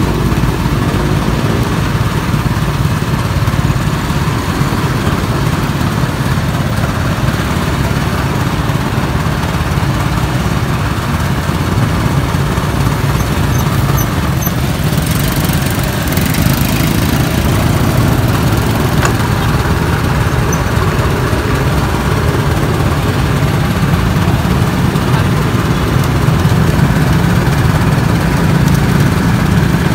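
Motor-driven sugarcane juice press running steadily as whole cane stalks are fed through its rollers, a constant low machine hum, with street traffic behind it.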